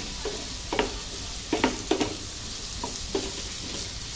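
Chopped onions sizzling as they sauté in butter in a nonstick pan, with a steady frying hiss. A wooden spatula stirs them, scraping and knocking against the pan about six times.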